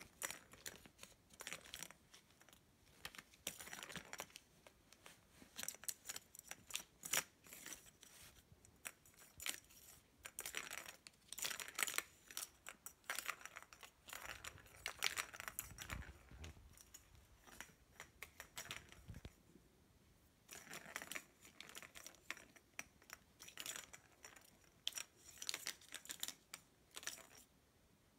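Plastic ball clicking and rattling around the track of a plastic ball-track cat toy as a kitten bats at it. The sound comes in irregular bouts of clicks and rattles with short lulls between, and stops shortly before the end.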